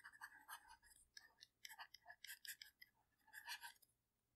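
Faint tapping and scratching of a stylus writing on a tablet screen, in short, irregular strokes.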